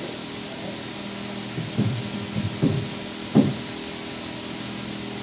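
Dull knocks as a freshly cast aluminium ring is handled and set down on a sand mould box: three low thuds, the loudest a little over three seconds in. A steady hum runs underneath.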